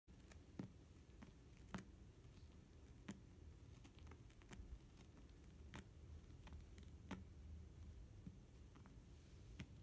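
Faint, irregular soft clicks and scratching of a Siamese cat's paws and claws on the fabric and fleece bedding inside a felt cat cave, over a low room hum.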